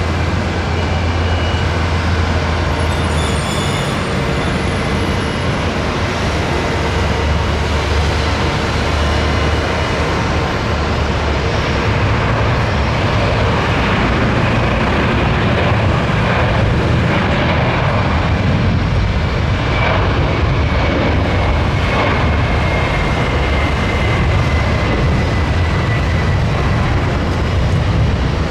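Boeing 767-400ER's twin GE CF6-80C2 turbofan engines at takeoff thrust during the takeoff roll: a steady, loud jet rumble and roar, with a high whine that slowly drops in pitch in the second half as the airliner passes.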